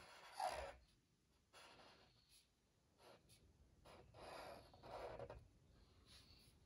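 Faint scratching of a black Sharpie permanent marker drawing on paper, in several separate short strokes.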